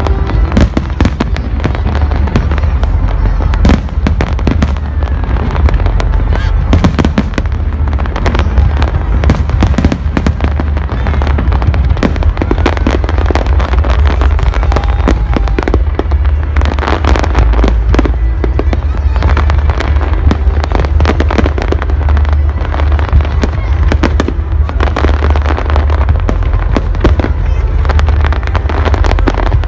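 Fireworks display going off: a dense, continuous run of bangs and crackling, several a second, over a steady low rumble.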